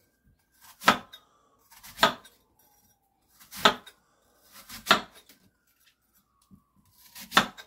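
Kitchen knife cutting pieces off a peeled Granny Smith apple around the core, each cut ending in a knock on the wooden cutting board: five cuts, unevenly spaced about one to two and a half seconds apart.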